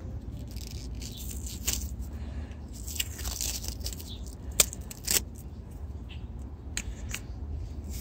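Braided cable sleeving being worked back by hand along an e-bike motor wiring harness: rustling and scraping with scattered clicks as the wires and connectors are handled, and two sharper clicks a little past halfway.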